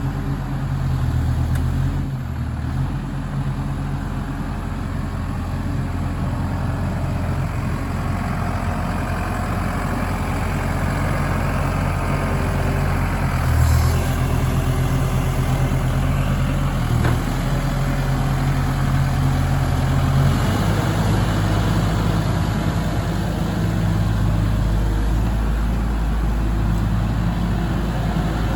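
New Holland MH3.6 mobile excavator's diesel engine running steadily, its low note changing several times.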